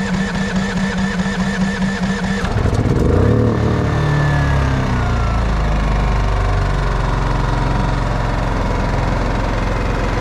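GENMAX GM14000i-HSB inverter generator's electric starter cranking its engine with an even pulsing rhythm; about two and a half seconds in the engine catches, revs up, and settles into steady running.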